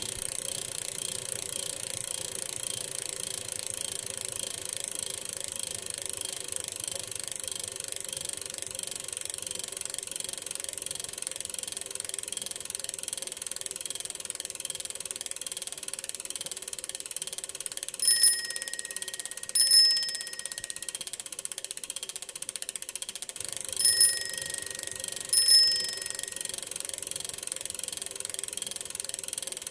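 Bicycle bell rung four times in the second half, in two pairs, each a bright ring that fades over about a second, over a steady hiss from riding along.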